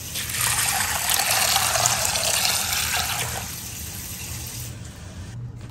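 Water being poured into a glass bowl of dried black-eyed peas to soak them: a steady splashing pour that fades from about three and a half seconds in and is mostly gone by about five.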